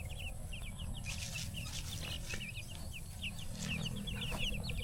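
A group of young chicks peeping busily as they are fed, many short high cheeps overlapping several times a second, over a low rumble.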